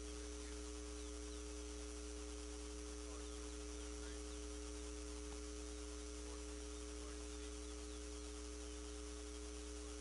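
Steady low electrical-sounding hum, with faint, short high bird chirps scattered through it.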